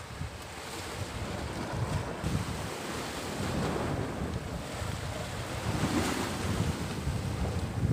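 Sea surf breaking and washing against a rocky shore, swelling to its loudest about halfway through as a wave crashes into white foam, with wind buffeting the microphone.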